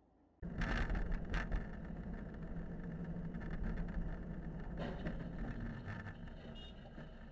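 Car driving, heard from inside the cabin through a dashcam's microphone: steady engine and road rumble that starts suddenly about half a second in. A few sharp clicks sound in the first second and a half.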